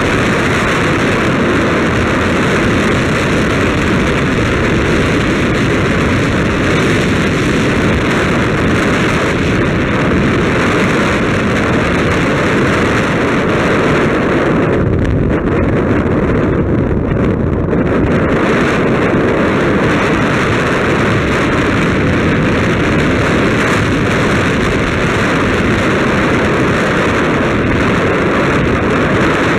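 Steady rush of wind buffeting the microphone of a camera riding along a paved road, with the hiss easing for a few seconds about halfway through.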